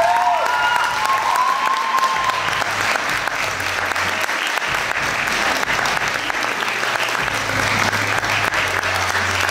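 Audience applauding steadily, with some cheering over the clapping in the first two seconds.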